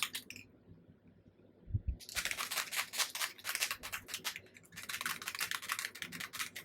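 Small bottle of Distress Oxide ink spray being shaken to mix the ink, a rapid rattling clatter in two spells of about two and a half seconds each, starting about two seconds in.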